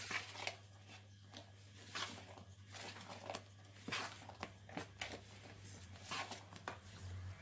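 Wooden spatula folding whipped cream and Oreo pieces in a bowl: faint, soft scraping and squelching strokes, about one or two a second, irregularly spaced.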